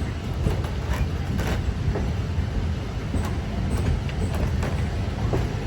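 Ride noise aboard a moving train car: a steady low rumble of wheels on rail, with scattered clicks and a couple of brief high squeaks.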